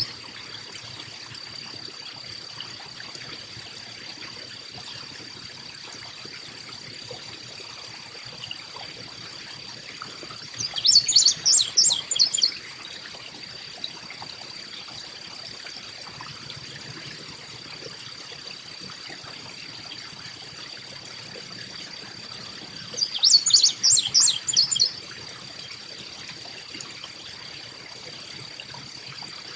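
Carolina chickadee calling: two bursts of quick high notes, each about two seconds long, a third of the way in and again near the end. A steady high-pitched whine and a faint hiss run underneath.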